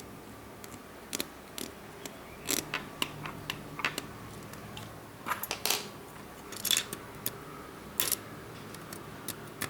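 Irregular sharp clicks and light taps of small metal tools against a smartwatch's housing, as a stuck strap screw is worked at. The clicks come in small clusters, the loudest between about five and eight seconds in.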